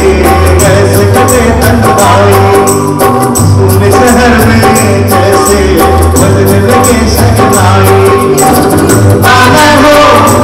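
Live Indian band playing a Hindi film song: dholak and other drums keep a steady beat under bass, guitar and keyboard, with a singer's voice carried over the stage speakers.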